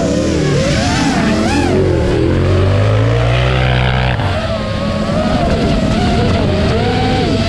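Motor noise from an off-road buggy racing on dirt and the FPV drone chasing it, rising and falling quickly in pitch with the throttle. A steadier low hum holds from about two seconds in and cuts off abruptly near the middle.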